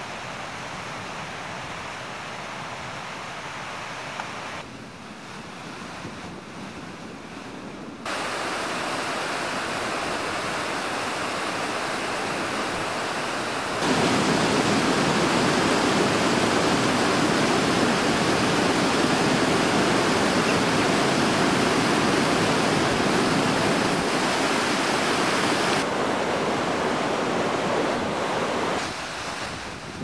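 Rushing water of a mill stream pouring over rocks below a watermill's pond: a steady rush with no tones. It gets louder in two steps, about 8 and 14 seconds in, and falls back near the end.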